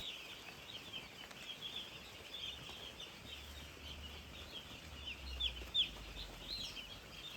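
A brood of young chicks peeping: many short, high-pitched peeps overlapping in a continuous chorus, a couple of louder ones about five and a half seconds in.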